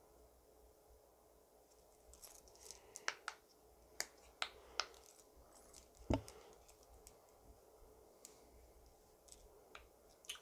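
Small hard objects being handled, faint overall: scattered light clicks and taps for a few seconds, one duller thump about six seconds in, then a few more clicks near the end.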